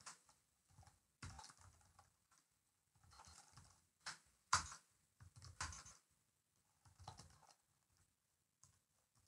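Faint computer-keyboard typing: short runs of keystrokes with pauses between them, the loudest about four and a half seconds in.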